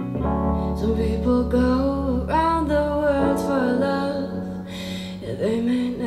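A song with a sung melody over guitar and a steady bass line, played through a Bang & Olufsen Beoplay A9 Mk4 wireless speaker.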